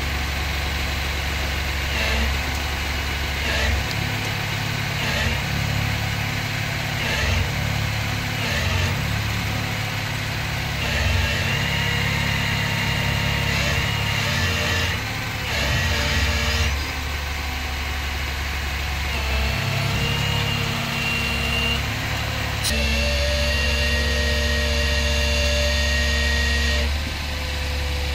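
Flatbed tow truck's engine running steadily while it loads a pickup, with intermittent noises over it in the first half; the engine note shifts and steadies about three-quarters of the way through.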